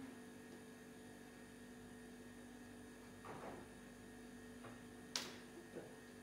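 Faint, steady electrical hum made of several fixed tones. A soft rustle comes about three seconds in, and a single sharp click about five seconds in.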